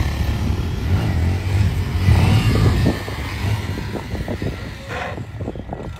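Honda Grom's small single-cylinder engine revving hard under throttle, then backing off about halfway through to a lower, uneven run.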